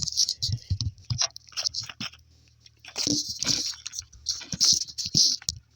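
Alternator being lowered through a Suzuki Grand Vitara V6 engine bay: a run of short metal clicks and knocks as it scrapes past engine parts, then quieter rustling handling noise about three and five seconds in.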